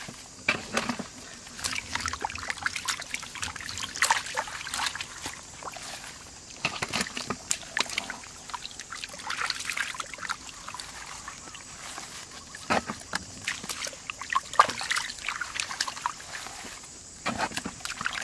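Shallow muddy water sloshing and trickling as hands and a plastic basket scoop and stir through it, with irregular small splashes throughout.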